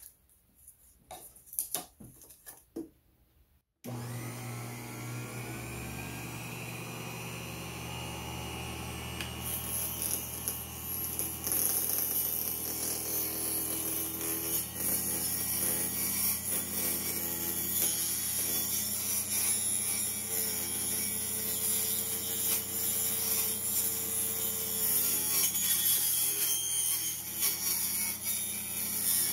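Micro-Mark micro table saw switched on about four seconds in, its motor running with a steady hum. From about ten seconds in, the blade rip-cuts a thin piece of wood, adding a louder, higher-pitched cutting noise over the motor. A few small handling clicks come before the switch-on.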